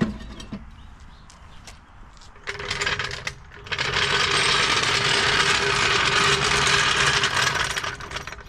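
A steel floor jack being rolled across the paved driveway, its wheels giving a loud, steady grinding rattle. The noise starts about two and a half seconds in, breaks off briefly, then runs on until shortly before the end.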